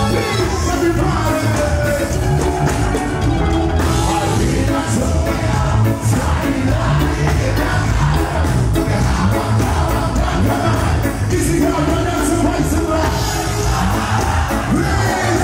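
Live reggae band playing: electric guitars, bass and drums with a male lead singer on a microphone.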